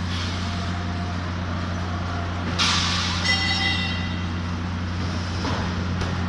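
A steady low engine hum runs throughout. About two and a half seconds in there is a sudden loud hiss, then a brief high squeal, like an air brake releasing.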